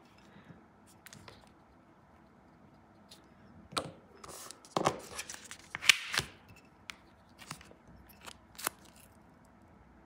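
A few short scrapes and clicks of nail-stamping tools, a silicone stamper and scraper on a metal stamping plate, bunched together between about four and six seconds in. A few faint ticks follow near the end.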